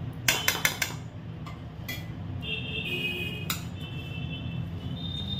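A spoon clinking against dishes and containers while spices are added to the chicken marinade: a quick run of four or five clinks near the start, then single clinks about two and three and a half seconds in.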